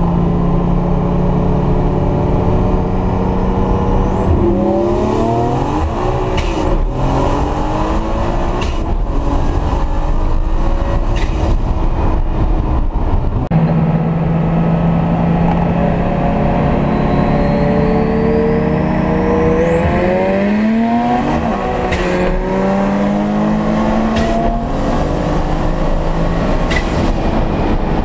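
Turbocharged VW VR6 engine heard from inside the cabin, running at steady revs and then pulled hard through the gears twice. In each gear the revs climb with a high turbo whistle rising alongside, and quick upshifts break the climb.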